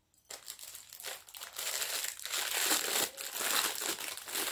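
Crinkly packaging being crumpled and handled as a piece of jewellery is unwrapped. It starts about a quarter second in as a dense crackle and grows louder about halfway through.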